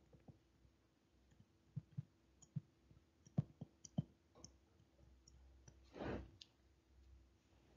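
Faint, irregular taps and clicks of a stylus on a tablet screen during handwriting, several close together between about two and four and a half seconds in, with one short breathy rush of noise about six seconds in.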